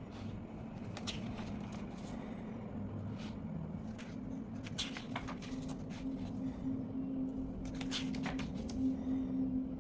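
Paper rustling and light handling scuffs, a few sharper rustles a few seconds apart, over a steady low hum.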